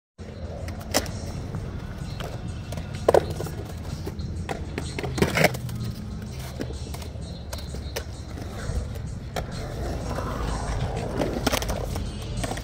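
Skateboard sounds on concrete: several sharp clacks of a board striking the concrete, the loudest about three and five seconds in, and near the end the rolling noise of skateboard wheels on concrete growing louder, over a steady low rumble.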